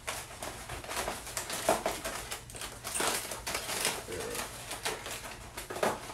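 Thin plastic water bottle crinkling and crackling in the hand while someone drinks from it, then set down on a table, giving a run of irregular small clicks and crackles.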